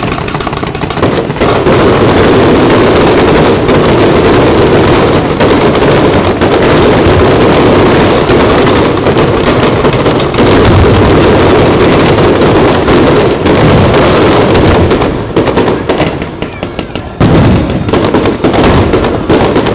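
Fireworks display in a dense, almost continuous barrage of bangs and crackles, very loud. It thins briefly about three quarters of the way through, then a fresh run of bursts follows.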